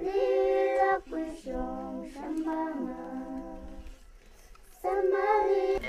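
Unaccompanied female singing in long, held, gliding notes, with a brief break about a second in and a pause of under a second about four seconds in.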